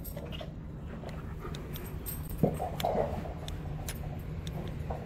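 Alaskan Malamute playing with a small chew toy: scattered taps and knocks as the toy is nosed around, the sharpest knock about halfway through, along with brief dog sounds.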